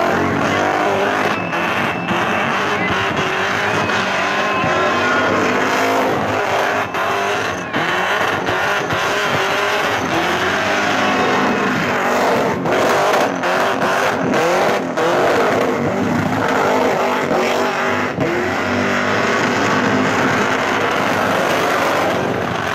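Supercharged V8 engine of a Holden Commodore held at high revs in a burnout, its note rising and falling as the throttle is worked, with the rear tyres spinning and squealing against the pad.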